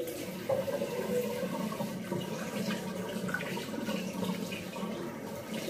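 Tap water running steadily into a sink.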